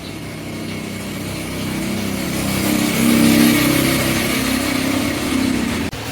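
A motor running with a steady hum and hiss, growing louder to a peak about halfway through and then easing off, with a sharp brief dropout just before the end.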